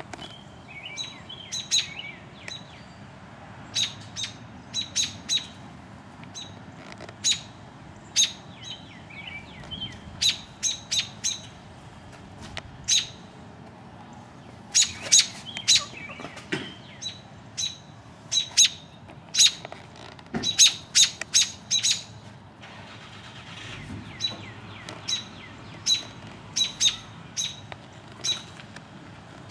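American robins giving repeated short, sharp alarm calls in irregular clusters, with a few downward-slurred notes at the start: parent robins scolding near their nest of young.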